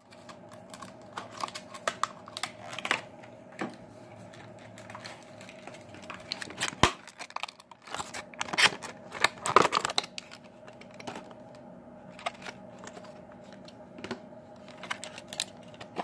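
Die-cast toy car being unboxed by hand: plastic and cardboard packaging crinkling and tearing, with irregular sharp clicks and rustles.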